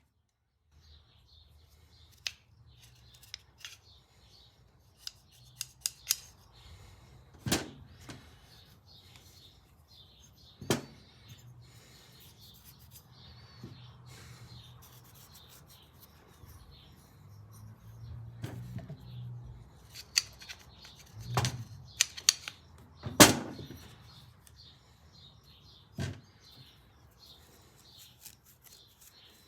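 Small parts of a motorcycle throttle assembly being handled on a workbench: scattered clicks, knocks and rubbing, with the loudest knock about 23 seconds in, over a faint low hum.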